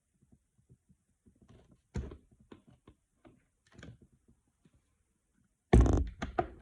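Plastic bottle and craft supplies being handled: scattered light clicks and knocks, a sharper knock about two seconds in, and a loud clatter of knocks near the end.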